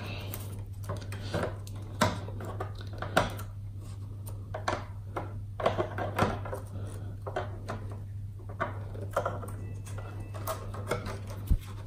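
Irregular light clicks and knocks as a computer motherboard is handled, lifted out of its metal and plastic chassis and turned over.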